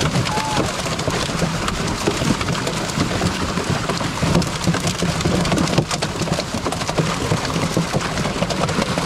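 Dense, continuous splashing and churning of shallow pond water as large pangas catfish thrash while being grabbed by hand from a net.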